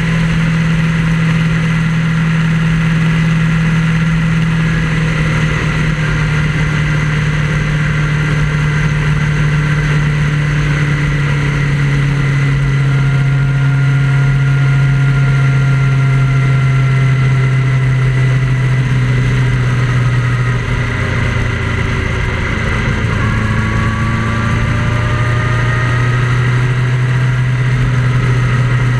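Vehicle engine and road noise while cruising steadily on an expressway: a constant low engine drone that eases a little lower about two-thirds of the way through.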